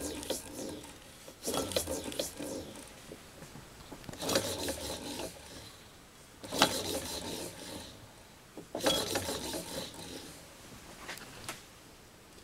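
Several short bursts of rubbing and scraping as metal parts of a Stirling engine are handled and fitted back together during reassembly.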